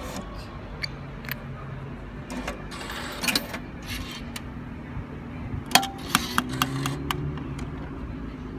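Coins clinking and dropping into a street parking meter, with a string of sharp clicks from the coin mechanism and a short rasping whirr from the machine about three seconds in, as it works toward issuing the parking ticket. A steady low hum of street traffic runs underneath.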